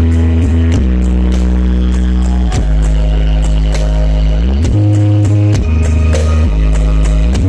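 Dance music played very loud through large outdoor sound-system speaker stacks. Deep bass notes are held a second or two each and glide up or down into the next, with sharp percussive hits on top.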